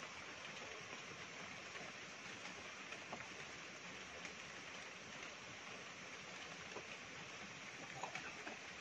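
Steady background hiss with a few faint clicks and taps, the loudest cluster about eight seconds in.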